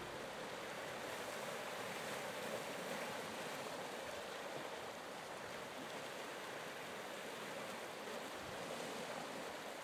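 Sea waves washing, a steady even hiss with no lulls.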